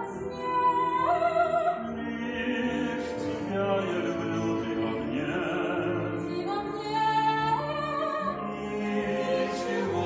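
A voice singing long held notes in an operatic style over instrumental accompaniment.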